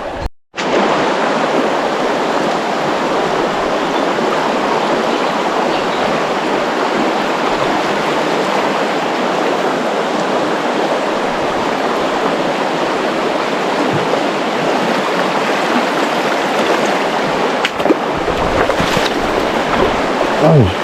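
River water running steadily, an even rushing wash, with a brief dropout just after the start.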